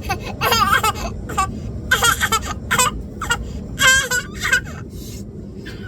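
Baby fussing and crying out in several short, high, wavering cries over the steady rumble of an airliner cabin.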